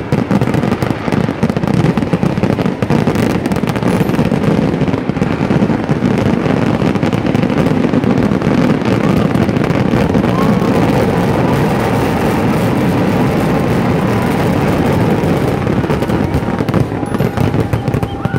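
Kerala temple fireworks (vedikkettu) going off in a dense barrage. The explosions follow so closely that they merge into one continuous loud rumble and crackle.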